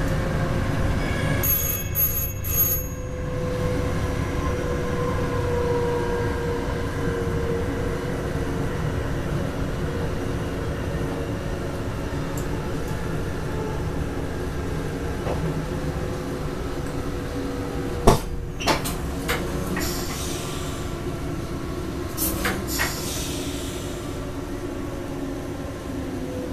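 Electric train running, heard from the front of the train: steady rumble with a motor whine that sinks slightly in pitch. About two seconds in come three short high beeps, and a few sharp clicks and knocks come about 18 and 22 seconds in.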